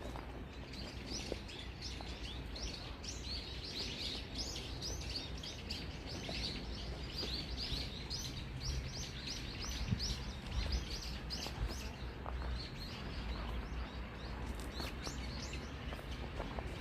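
Many small birds chirping in quick, overlapping calls throughout, over a steady low background rumble.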